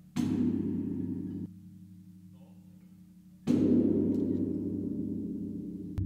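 Large hanging temple bell struck twice by a swinging wooden log striker, about three seconds apart. Each strike gives a sharp clang and then a long, deep ringing hum. The first ring cuts off suddenly about a second and a half in, while the second fades slowly.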